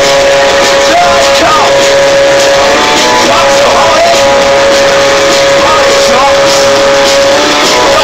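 Live band playing loud music. A steady held note runs throughout, with sliding, wavering pitches above it and repeated drum and cymbal hits.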